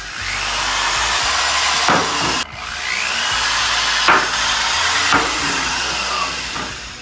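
Electric drill with a small bit pre-drilling pilot holes through the sheet-metal front fender of a Toyota Tacoma. It runs for about two seconds, stops briefly, then runs again for over four seconds, its whine rising and falling in pitch.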